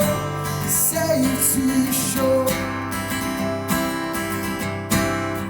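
Worship band music led by strummed acoustic guitar, playing held chords.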